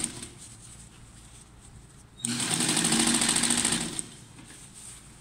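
Electric sewing machine stitching a sleeve into a jacket armhole in short runs. A run stops just after the start; the machine starts again about two seconds in, runs with a fast, even stitch rhythm for nearly two seconds, then stops.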